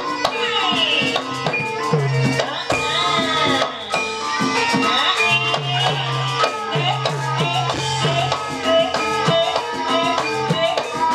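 Ebeg accompaniment music: a Javanese gamelan-style ensemble with hand-drum (kendang) strokes under a melody line that bends up and down in pitch.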